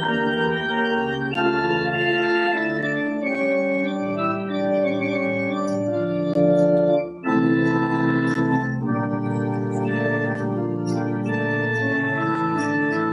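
Organ music: sustained chords changing about once a second, with a short break about seven seconds in.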